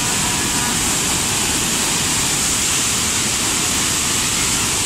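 River water pouring through the open gates of a barrage and churning into whitewater below the piers: a loud, steady rush.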